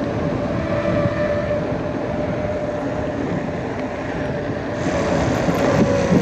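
Mountain bike rolling downhill, with tyre and wind rush on the bike-mounted camera's microphone and a steady whine that drops slightly in pitch near the end.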